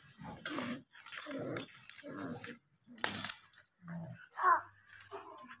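A plastic baby rattle shaken and knocked against brick paving in short irregular bursts, with a sharp knock about three seconds in, mixed with brief vocal sounds.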